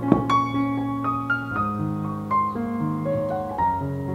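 Background piano music: gentle single notes over held chords. A brief soft knock right at the start.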